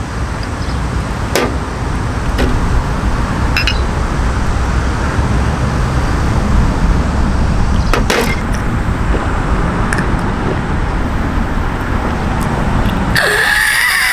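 Steady outdoor road-traffic rumble, with a few light clicks and clinks of a glass bottle and glasses as soju is poured. About 13 seconds in it cuts abruptly to a high, wavering tone.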